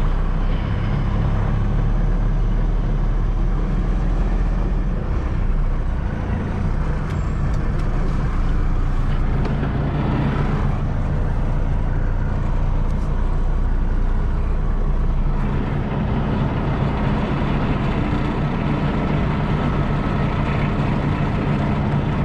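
Diesel engine of a Kenworth T680 semi-truck running at low speed during a parking maneuver, a steady low hum whose note shifts about two-thirds of the way through.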